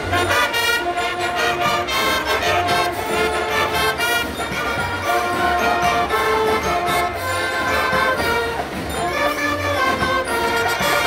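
Marching band playing a tune on the move: saxophones, clarinets and sousaphones together, with the sousaphones carrying a low bass line under the reeds.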